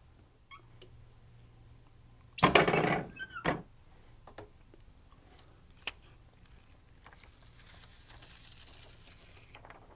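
Heat press opened with a loud clunk and creak about two and a half seconds in, followed by a few light clicks and, near the end, the soft rustle of craft paper being lifted off the pressed shirt.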